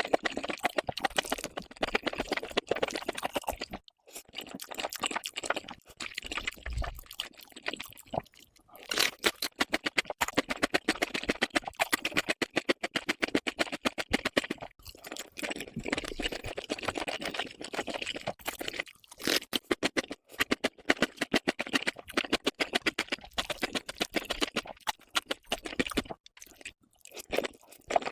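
A person chewing crunchy food: dense runs of rapid crunches broken by a few short pauses.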